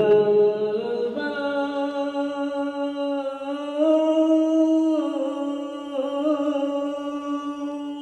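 A single voice singing one long, chant-like held note, with a few small shifts in pitch.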